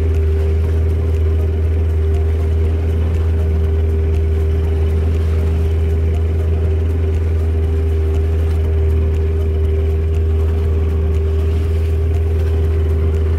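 A small open boat's engine running at a steady speed: a constant low drone with a steady hum above it.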